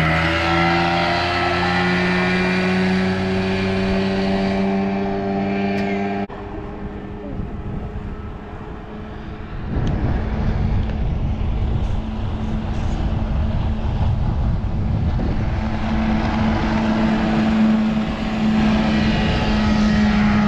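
Outboard motor on an aluminium bass boat running under way, its pitch rising a little as the boat pulls away. After a sudden cut about six seconds in, the outboard is heard running steadily at a distance under a heavy low rumble.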